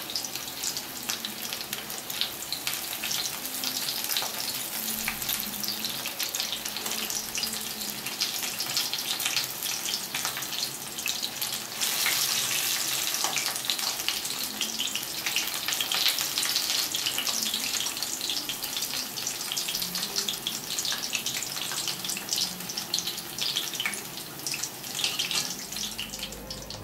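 Sesame-coated paneer pakodas deep-frying in hot oil in a kadai: steady sizzling with fine crackling, somewhat louder about halfway through.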